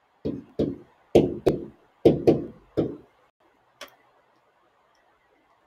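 Pen tapping against a writing board while numbers are written: about eight short, sharp taps in quick, uneven succession, then one more a second later.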